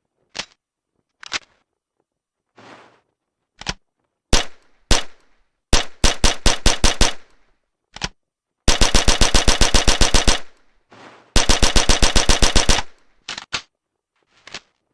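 Sten Mk IIS integrally suppressed 9 mm submachine gun firing. A few single shots are spaced out first, then three rapid automatic bursts of about nine or ten rounds a second, the longest running about a second and a half. A few lone shots or clicks come at the end.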